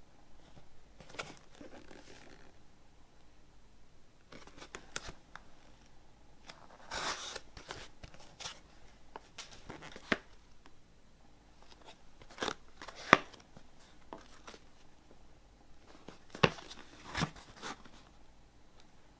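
Cardboard box handled and turned over in the hands: scattered sharp taps and clicks, with a short rustling scrape about seven seconds in.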